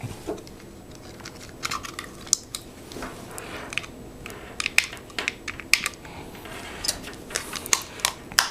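Irregular light clicks and taps of a small plastic device being handled, as an SD card is pushed into the DVR252 adapter unit's card slot.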